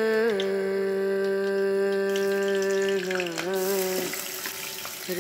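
A humming voice holds long, slow notes with gliding changes of pitch. About three and a half seconds in, hot ghee starts to sizzle as sliced onion and green chilli drop into it.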